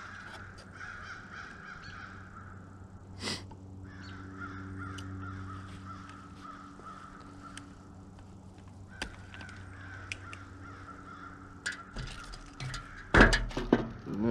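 Small clicks and scrapes of wire strippers working the insulation off thin timer wires, with a sharp snap about three seconds in and louder handling knocks near the end. Birds call steadily in the background.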